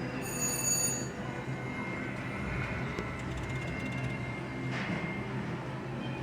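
Casino floor din of slot machines: a steady electronic hum with held tones, and a short high chime a fraction of a second in.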